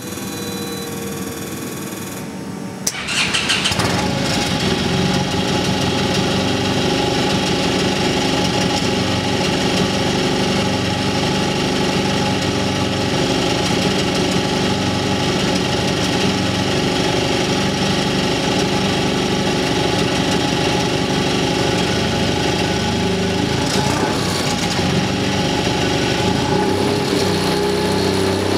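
HKS 700T turbocharged, fuel-injected two-cylinder aircraft engine being started: the electric starter whines for about three seconds, the engine catches and then runs at a steady low speed, with the revs raised a little near the end.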